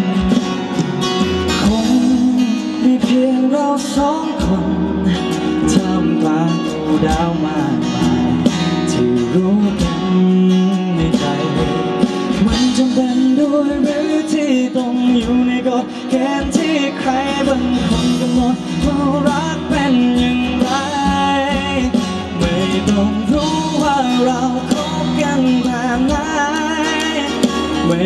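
A male singer performing a Thai heartbreak ballad live into a microphone, sung through a PA with instrumental backing.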